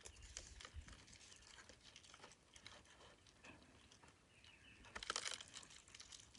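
Faint rustling with small clicks and scrapes from hands moving a bamboo stick against a hornet nest in a wooden box. A slightly louder rustle comes about five seconds in.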